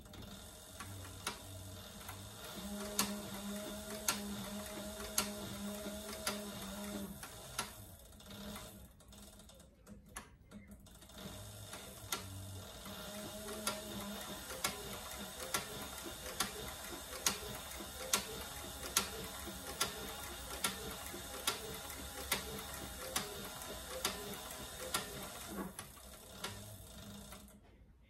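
Cobra Class 4 leather sewing machine stitching slowly through a leather sheath: a steady motor hum with a sharp clack at each stitch, about one or two a second, stopping briefly about a third of the way through and then carrying on.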